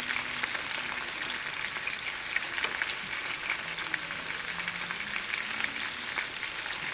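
Chicken legs sizzling in a frying pan, with a steady hiss and scattered small crackles as they brown and the pan juices cook off.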